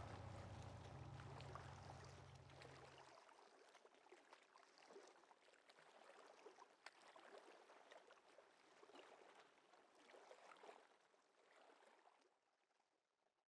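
Faint low hum of a fishing pirogue's outboard motor over water, cut off abruptly about three seconds in. After it, faint lapping water with small scattered ticks fades out to silence.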